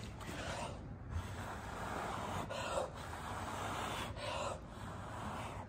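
A person blowing hard by mouth across wet acrylic pour paint in a run of long puffs with short breaks between them, pushing the paint outward to open a bloom.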